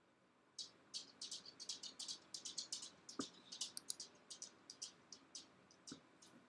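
A fast, irregular run of faint, short high-pitched chirps lasting about five seconds, with two sharper clicks, one about three seconds in and one near the end, like mouse clicks.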